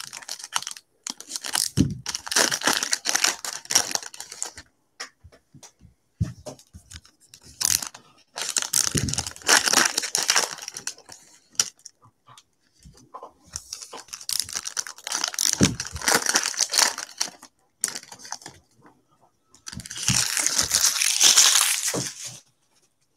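Foil trading-card pack wrappers being torn open and crinkled by hand, in four bursts of crackly rustling with short pauses between them.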